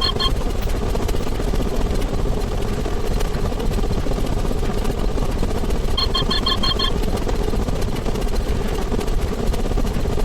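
A dense, sped-up jumble of many layered sound effects merging into a continuous rumbling din. About six seconds in, a quick run of about eight short high beeps cuts through it.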